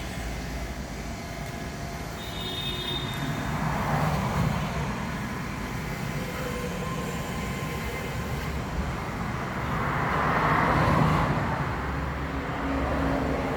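Industrial roasting and stirring kettle running, its motor-driven mixing paddle giving a steady mechanical noise that swells twice.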